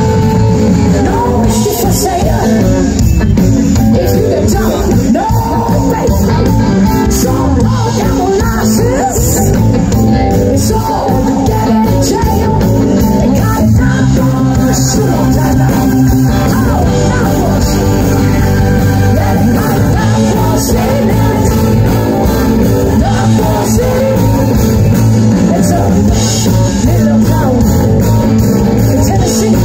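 Live rock band playing loudly through a PA: electric guitars, drums and keyboard with a singer.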